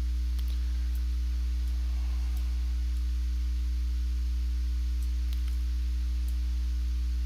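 Steady low electrical hum in the recording, with a few faint clicks scattered through it.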